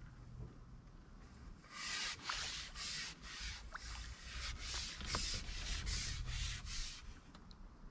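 A carbon fishing pole rubbing in quick repeated strokes as it is handled, about two strokes a second for some five seconds, starting about two seconds in.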